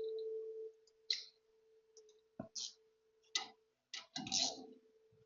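A steady hum cuts off under a second in, followed by scattered sharp clicks and knocks of hand tools and metal suspension parts being handled while an upper control arm is fitted and bolted up.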